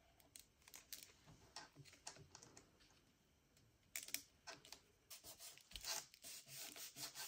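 Faint paper handling: small taps and rustles as glued paper pieces are laid in place and pressed flat by hand, with a short pause a little before halfway.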